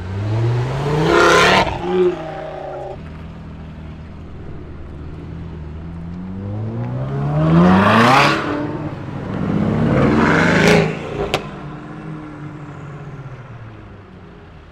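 Loud performance-car engines and exhausts revving hard as cars accelerate away, in three surges with the engine note climbing, an engine idling between them. A single sharp crack comes about 11 seconds in.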